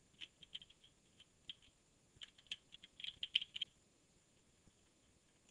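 Faint typing on a computer keyboard: a quick, uneven run of key clicks that stops about two-thirds of the way through.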